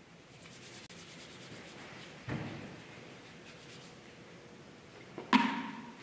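Altar vessels being handled and rubbed at the altar after communion: a long rubbing, a light knock about two seconds in, then a sharp ringing clink near the end as a metal or glass vessel is set down.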